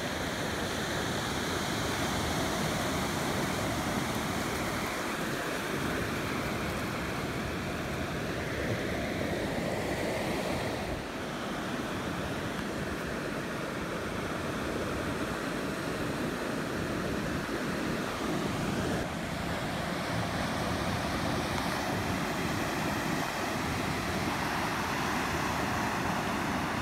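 Steady wash of ocean surf breaking on a sandy beach, with some wind on the microphone.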